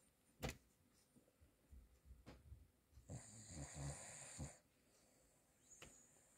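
Cavalier King Charles Spaniel snoring in deep sleep: one long, rattling snoring breath a little past the middle. A sharp click comes about half a second in.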